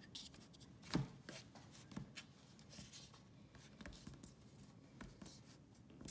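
Faint rubbing and scratching of fingers kneading duct seal putty around a plastic fish-finder transducer on a cardboard sheet. A sharp knock about a second in, then a few smaller clicks.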